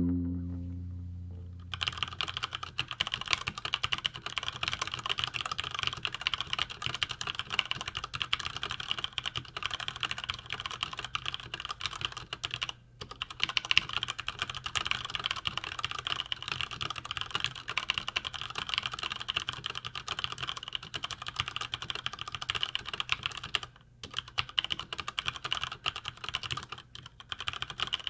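Fast continuous typing on a Cherry MX Board 5.0 mechanical keyboard with Cherry MX Red linear switches, a dense run of keystrokes with two short breaks partway through. The tail of a music intro fades out during the first two seconds, before the typing starts.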